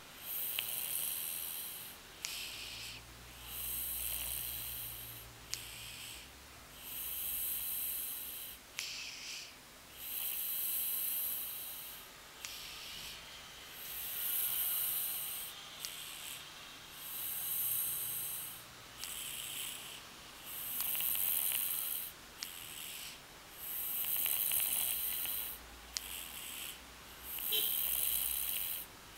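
Steady, rhythmic snoring made of hissy, wheezy breaths. A longer breath comes about every three and a half seconds, each followed by a shorter one.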